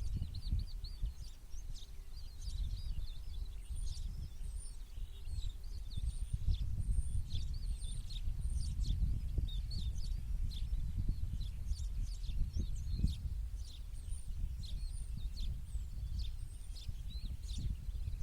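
Several small birds chirping and twittering in quick, repeated high calls, over a loud, uneven low rumble.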